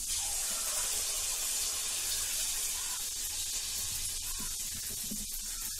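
Sweet wheat-flour bonda batter frying in hot groundnut oil in an aluminium kadai: a steady, even sizzle.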